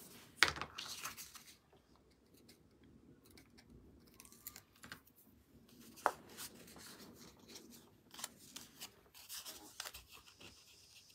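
Craft tape and cardstock being handled: a sharp tearing sound about half a second in, then soft rubbing and rustling of card, with a single sharp click about six seconds in and more rustling near the end.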